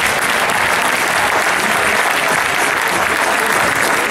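Audience applauding steadily, with voices mixed in.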